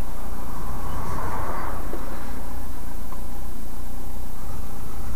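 Motorcycle riding along at steady speed: wind rushing over the helmet- or bike-mounted microphone, with a steady low rumble from the engine and road beneath it.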